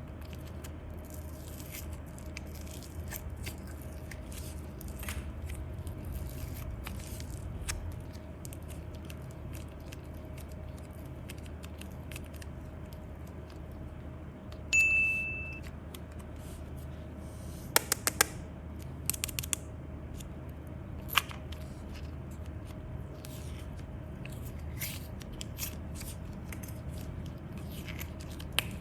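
Hands handling slime and small plastic craft items: scattered clicks, snips and scrapes over a steady low hum. There is a short, high ping about fifteen seconds in and a quick run of clicks near eighteen seconds.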